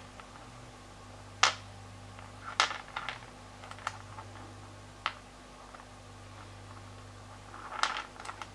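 Rough opal stones clicking as they are picked up, set down and knocked against one another on a wet mat: a handful of sharp, scattered clicks with a small cluster near the end, over a low steady hum.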